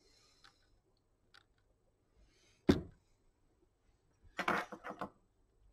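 Cloth rubbing as old thermal paste is wiped off a laptop processor, with small handling clicks. A single sharp knock comes just under three seconds in, and a short run of clattering follows about a second and a half later.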